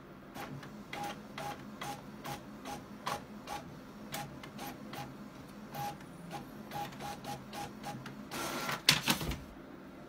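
Desktop printer printing a page: a long run of short mechanical clicks and ticks, about two or three a second, as the print head works. A louder stretch of mechanical noise follows near the end as the printed sheet is pushed out.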